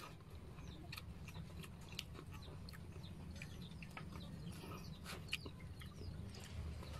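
Faint clucking of chickens over a low steady rumble, with scattered small clicks and taps from eating by hand off a plate.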